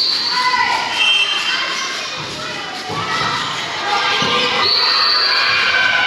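Women's voices shouting and cheering together in a volleyball gym, with scattered thuds and a short high steady tone about five seconds in.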